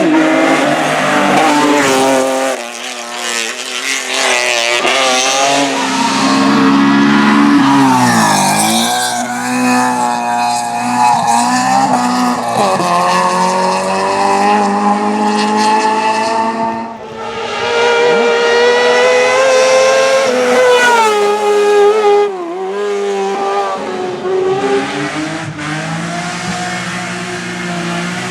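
Race car engine revving hard at high rpm, its pitch climbing through each gear and dropping sharply several times at gear changes and lifts off the throttle.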